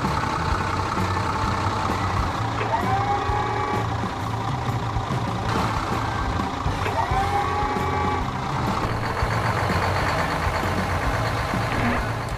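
Truck engine running steadily, with two short rising pitched sweeps about four seconds apart.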